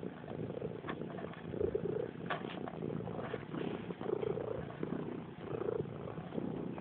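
Domestic cat purring close up while kneading, the purr swelling and fading with each breath. A few faint clicks sound over it.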